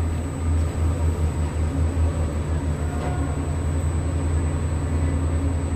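Steady low mechanical hum of a tower crane's machinery, heard from the operator's cab, with a faint steady high whine above it.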